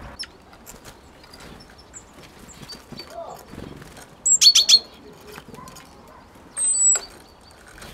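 Great tits calling: a quick run of four or five sharp high notes about four and a half seconds in, then one long thin high note near the end, with light clicks and taps of the birds on the wooden feeder in between.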